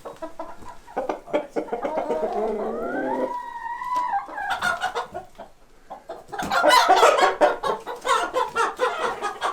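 Young chickens clucking and squawking while being caught and handled, with one long drawn-out call a few seconds in and a loud burst of squawking from about six seconds.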